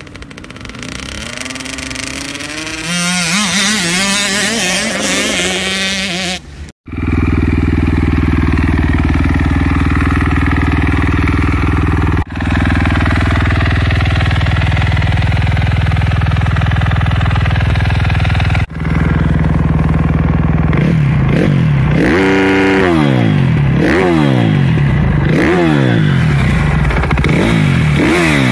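Motorcycle engines: first a small dirt bike engine rising and falling in pitch, then after a sudden cut about seven seconds in, a supermoto motorcycle's engine running steadily at idle, blipped repeatedly with quick rises and falls in pitch near the end.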